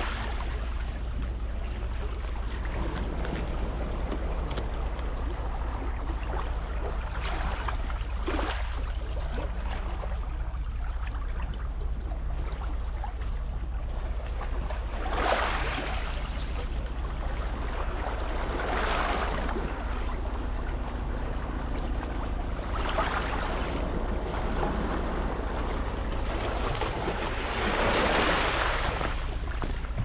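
Small waves washing onto a pebble beach, swelling and falling back every few seconds, the longest wash near the end, over a steady low rumble.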